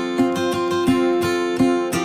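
Background music: a strummed acoustic guitar playing sustained chords in a steady rhythm, about three strums a second.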